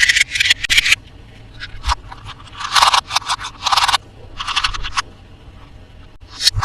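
Toy packaging being handled and opened by hand: bursts of scraping and crinkling, rapid and dense in the first second, then several separate scrapes with quieter gaps between.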